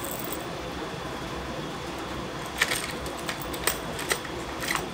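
Light clicks and rattles of wooden lures and their treble hooks being handled and picked out of a wooden tackle box tray, a handful of sharp ticks in the second half, over a steady background hum.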